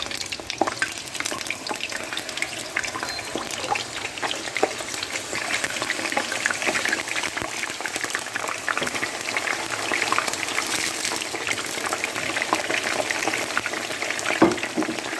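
Food frying: a steady sizzle thick with many small crackles and pops.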